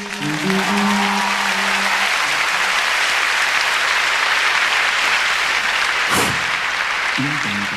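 Audience applauding loudly after a vocal number, over the tail of a held sung note in the first couple of seconds; near the end a new low sung line starts.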